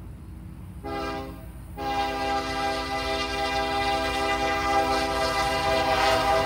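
Approaching diesel freight locomotive sounding its multi-tone air horn: a short blast about a second in, then a long blast held until near the end, over the low rumble of the train.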